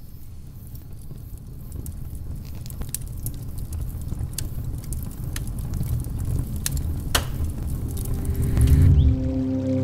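Wood fire burning: a low rumble of flames that grows louder, with scattered sharp pops and crackles from the burning logs. Music comes in near the end.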